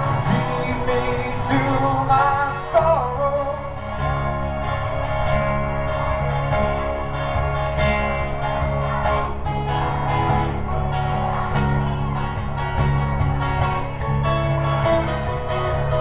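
Live band music recorded on a cheap cell phone: acoustic guitar strummed over bass, organ and drums, with a man's voice singing a wavering line early on.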